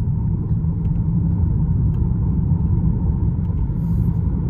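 Steady low rumble of road and tyre noise inside the cabin of a moving Tesla Model 3 Performance, with no engine note.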